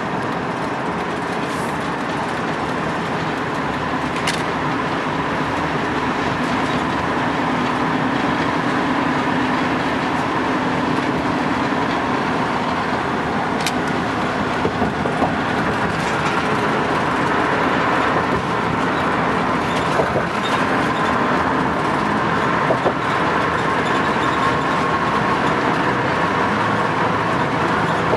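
Steady road and tyre noise heard inside a car cruising on a concrete freeway, with a few sharp clicks.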